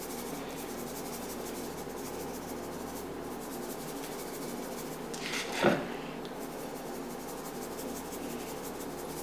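Salt being shaken from a small shaker onto a raw venison roast and its ceramic plate: a faint, steady, scratchy sound of fine rapid ticks. One brief louder rub comes about five and a half seconds in.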